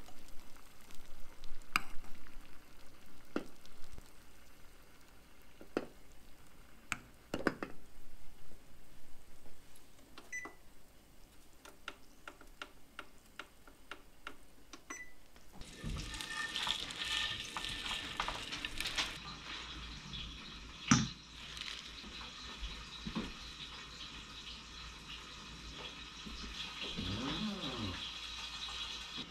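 Kitchen cooking sounds: scattered clinks and knocks of pots and utensils. From about halfway a steady hiss sets in, with one sharp loud knock about two-thirds of the way through.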